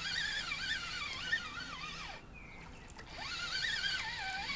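Background music: a high, wavering melody line that breaks off briefly a little after two seconds in.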